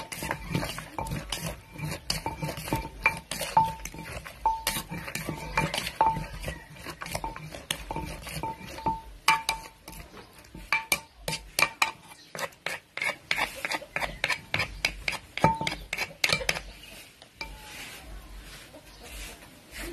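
Wooden pestle pounding green papaya salad in a clay mortar, a steady beat of knocks that each ring briefly off the mortar, with a plastic spoon turning the mix. From about halfway the even pounding gives way to irregular sharp clacks and scraping of pestle and spoon against the mortar, which die down near the end.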